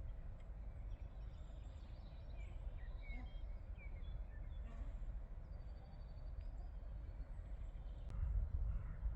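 Outdoor yard ambience: a steady low rumble with a few faint bird chirps about three seconds in, a thin high whistle around six seconds, and a single sharp click near the end.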